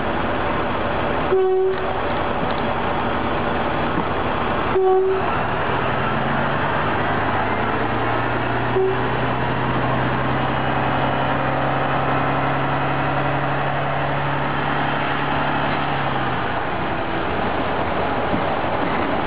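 Running noise of an ES401 catenary-maintenance railcar heard right at its bogie: wheels rolling on the rails with a continuous rumble and rattle of the brake gear and suspension. Three short tones come a few seconds apart in the first half, and a low steady hum sets in partway through and fades near the end.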